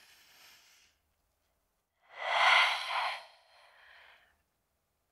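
A person breathing audibly through the airway during a yoga pose: a faint breath tails off at the start, then one louder, breathy rush of air about two seconds in, lasting about a second.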